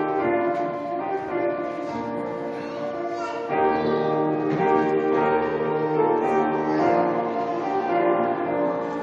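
Live music: a group of children singing a carol-like song with piano accompaniment, sustained notes changing every second or so.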